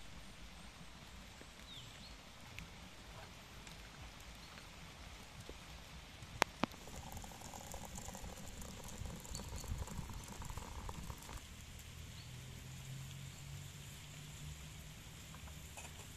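Hot water poured into a copper teapot onto loose tea leaves, a steady splashing stream lasting about five seconds, just after two sharp clicks. A wood fire crackles lightly underneath throughout.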